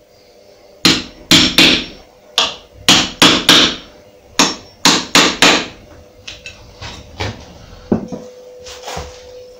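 Hammer striking the points of screws set in a timber batten held against a plastered wall, about a dozen sharp taps in quick groups over the first half. The screw points mark where the wall is to be drilled for plugs. Softer knocks and handling follow as the frame is lifted away.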